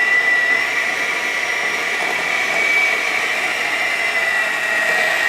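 Electric hand mixer running steadily with a high whine, whipping butter and powdered sugar into frosting.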